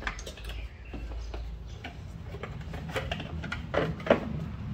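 Irregular metallic clicks and knocks of a ratchet ring spanner and tools against the engine parts as the damaged cooling fan is worked free, with a couple of louder knocks near the end.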